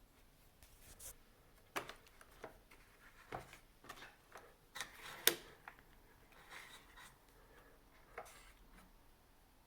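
Scattered small clicks, taps and rubbing of parts being handled during reassembly of a bean-to-cup coffee machine, at irregular intervals with the sharpest click about five seconds in.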